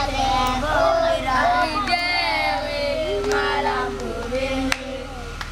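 A small group of children singing a school song together, unaccompanied, holding one long note about halfway through. A steady low hum runs underneath, and there are a few sharp clicks.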